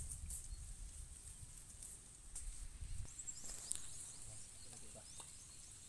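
Faint outdoor rural background: a low rumble, a steady high-pitched hum, and a few short, quick falling chirps in the second half.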